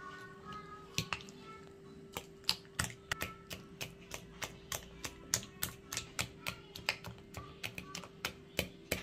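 Metal utensil clicking against a ceramic plate while beating a thick flour-and-egg batter, about three sharp clicks a second, settling into a steady rhythm about two seconds in.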